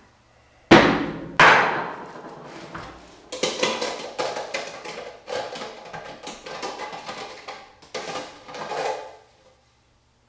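A hard thump as a plastic battery pack is set down on a worktable, then a second knock, followed by several seconds of irregular clattering and knocking as a battery chainsaw is lifted and handled on the table.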